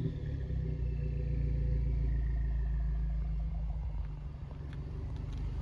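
Mercedes-Benz C250 (W204) engine running steadily with a low exhaust rumble, with a faint whine falling away in the first few seconds.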